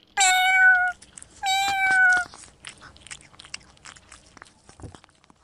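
A cat meows twice: two loud, high calls, each just under a second long and dropping slightly in pitch. After that comes faint, irregular crunching as a cat chews dry biscuits.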